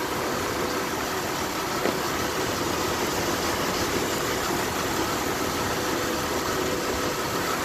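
2006 Jeep Wrangler's 4.0-litre straight-six engine idling steadily while misfiring on cylinder 1: that injector is held open all the time by a failed driver in the PCM, so the engine runs rich.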